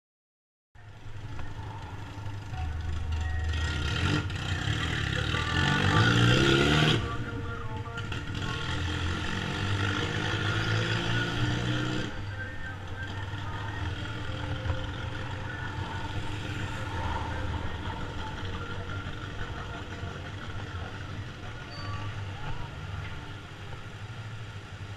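Yamaha MT-03 motorcycle's parallel-twin engine heard from the rider's seat. It rises in pitch as it accelerates a few seconds in, is loudest just before it drops off sharply at about seven seconds, then settles to a lower, quieter running from about twelve seconds in.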